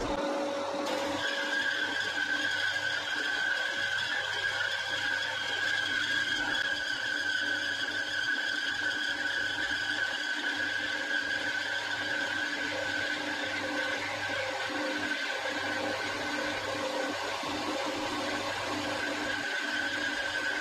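Holzmann BS 115 metal bandsaw switched on and running, its motor and blade band giving a steady whine, as the blade feeds down into a rusty steel pipe held in the vice.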